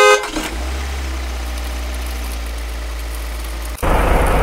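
A truck horn toots and stops just after the start, then a truck engine idles with a steady low hum. A little before the end it jumps suddenly to a louder, rougher run, as of the truck pulling away. The plastic toy trucks have no motors, so this is a truck sound effect laid over the play.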